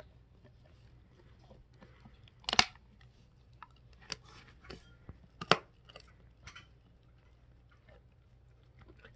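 Doberman gnawing a bully stick: irregular wet chewing and crunching, with two sharper, louder crunches about three seconds apart.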